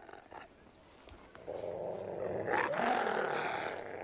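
Gray wolves snarling and growling at each other in a squabble, starting about a second and a half in, with a short rising cry about two and a half seconds in.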